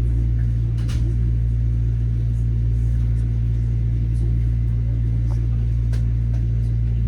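Inside a Metro-North M7A electric commuter train car running between stations: a steady, loud low rumble, with a single sharp knock about a second in and a few faint ticks.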